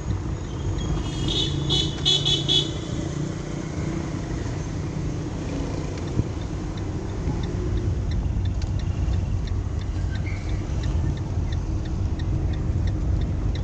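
Busy street traffic: a steady rumble of passing cars, with a car horn tooting in several short beeps about a second in. A run of light, evenly spaced ticks comes in the second half.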